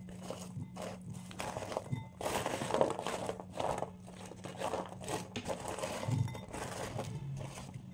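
Aluminium foil crinkling as dried amla (Indian gooseberry) pieces are scraped off a foil-lined plate by hand and dropped into a glass bowl, with irregular light taps and clicks.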